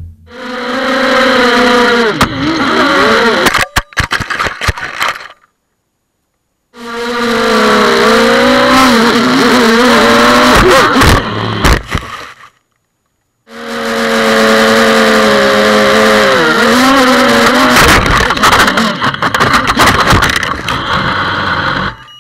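FPV quadcopter's brushless motors whining, the pitch rising and falling as the throttle changes, heard from the onboard camera. It comes in three runs, each ending in a few sharp knocks before the sound stops dead.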